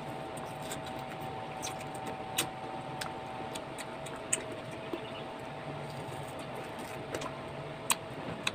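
A steady motor hum at one constant pitch, with several short sharp clicks of eating and handling the bowls of mango.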